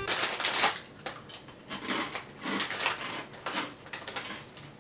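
Plastic snack bag crinkling in irregular crackles as it is handled.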